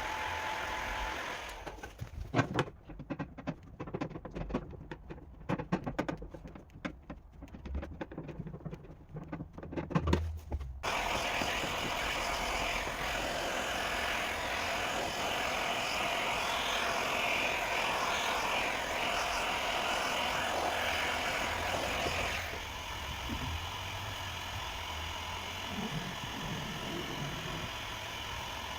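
A run of irregular sharp knocks and taps lasting several seconds, then a steady, even mechanical noise that drops to a quieter level about three-quarters of the way through.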